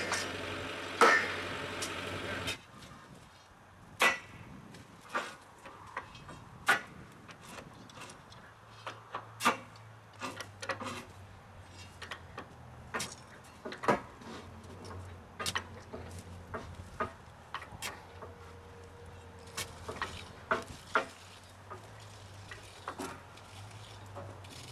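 Steel hand tools knocking and clinking on rails and track fastenings during track laying: irregular sharp metallic strikes, roughly one a second. For the first two and a half seconds a steady machine hum runs under the strikes, then cuts off abruptly.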